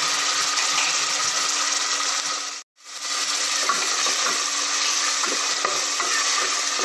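Ginger-garlic paste, onions and whole spices sizzling in hot oil in a pressure cooker, stirred with a wooden spatula that scrapes and knocks against the pot; the paste is being fried until its raw smell goes. The sound cuts out for a moment a little under three seconds in.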